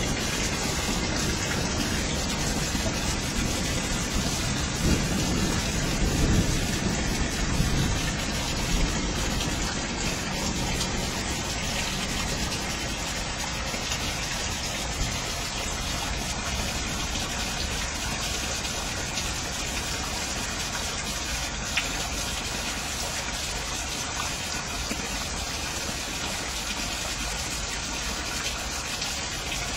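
Heavy rain falling steadily, with a continuous gush of pouring water. A low rumble swells briefly about five to eight seconds in.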